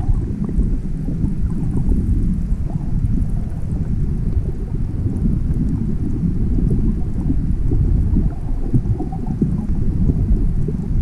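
Surf surging through a rocky pool, heard from underwater through a camera's waterproof housing: a deep, steady churning rumble with faint crackles of bubbles.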